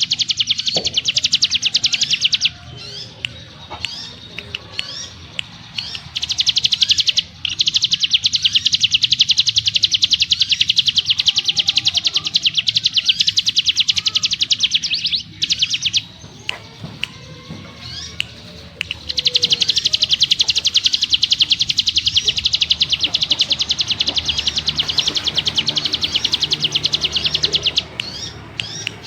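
Ciblek gunung singing its rapid 'ngebren' trill: three long runs of fast repeated high notes, each several seconds long, broken by short single chirps.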